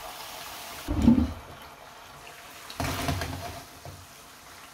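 Tomato sofrito sizzling steadily in a covered frying pan, with two louder knocks of metal against the pan, about one second in and about three seconds in, as the lid is handled and lifted off.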